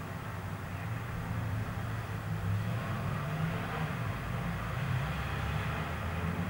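Steady low rumble of a motor vehicle engine with street traffic, its pitch wavering slightly but with no sharp knocks.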